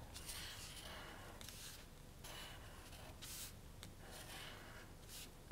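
Faint scratching of a water-soluble felt-tip marker drawing circles on paper, in a series of short strokes.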